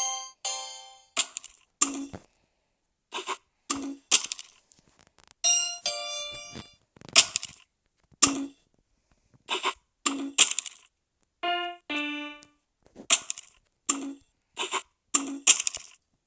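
A rapid run of different doorbells, one after another. Several are ringing chime tunes with clear held tones, about a second in, near the middle and about three-quarters through. Between them come many very short, sharp rings and buzzes.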